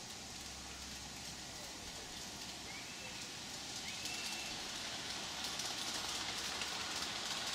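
G-scale model cog train running along garden track, its wheels and the pinion gear on the rack rail making a fine, rapid clatter that grows louder from about halfway through as the train comes closer.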